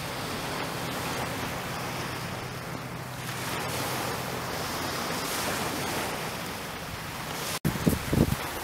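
Small waves breaking and washing up a shingle beach, a steady hiss of surf. About a second before the end, gusts of wind hit the microphone in several short, loud low rumbles.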